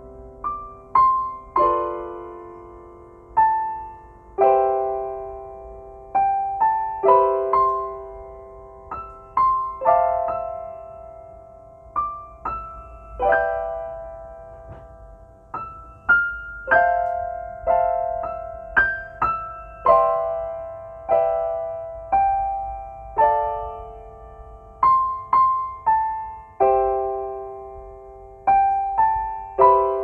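Solo piano playing a slow, gentle melody. Single notes and chords are struck every second or so and left to ring and die away.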